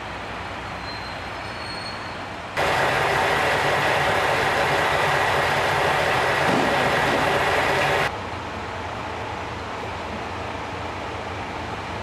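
JR Shikoku KiHa 185 series diesel railcar standing with its engine idling steadily. About two and a half seconds in, a loud steady hiss starts abruptly and cuts off just as abruptly about five seconds later.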